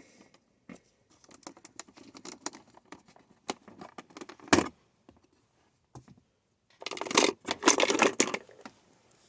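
Plastic dashboard trim of a car interior being pried and handled: scattered clicks and scraping taps, one sharp snap about four and a half seconds in, and a flurry of clicks and rattles near the end.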